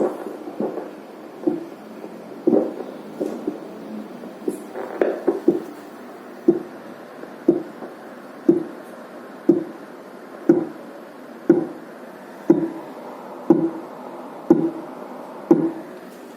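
Fetal Doppler's loudspeaker playing the simulated fetal heartbeat from a fetal simulator set to 60 beats per minute: a low pulse about once a second, uneven for the first few seconds and then steady. This is the Doppler's heart-rate test at the 60 bpm point.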